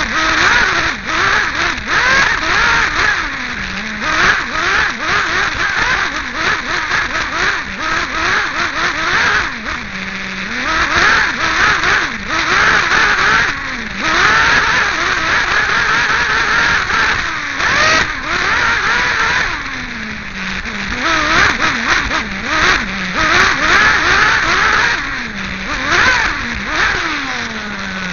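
Small nitro glow engine of a 1/8-scale Team Associated RC8B buggy, heard close up from on board, revving hard and falling back to a low idle again and again as it is driven around the track. It drops to a steady idle near the end.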